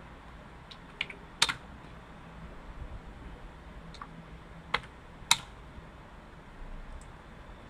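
A few separate keystrokes on a computer keyboard, with two sharp, loud key presses about a second and a half in and again about four seconds later.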